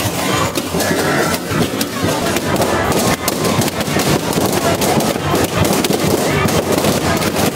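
Many party balloons popping in quick, irregular succession, sharp bangs coming one after another throughout.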